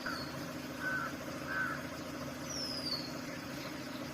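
Three short harsh bird calls in the first two seconds, about a second apart, and a high falling whistle from a bird near the middle. Under them runs the steady low hum of the safari vehicle's idling engine.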